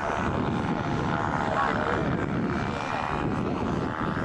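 Paramotor's backpack engine and caged propeller running steadily as it flies low overhead, with a buzzing engine note.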